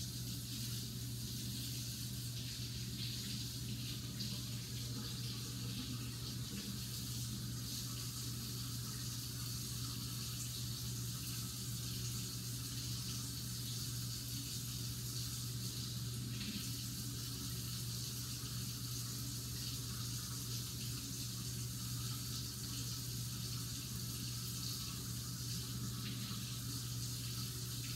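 Water tap running steadily into a sink, an even hiss with a low hum beneath it.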